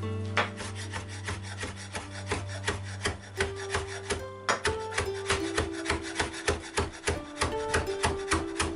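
Chef's knife rapidly chopping fresh coriander on a wooden cutting board: a quick run of knife taps on the wood, several a second, over soft background music.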